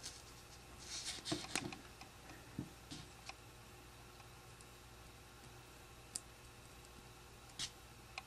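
Plastic Lego bricks clicking and rubbing together as they are handled and pressed into place, faint: a cluster of clicks about a second in, then a few single clicks.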